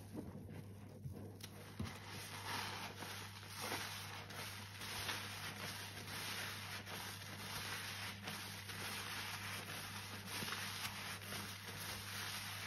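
Soapy sponge squeezed and kneaded by rubber-gloved hands in a sink of sudsy water: wet squishing and sloshing with a steady hiss of foam, fuller from about two seconds in.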